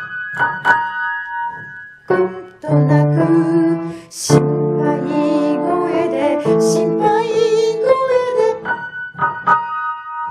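A children's song: a woman singing in Japanese over piano accompaniment.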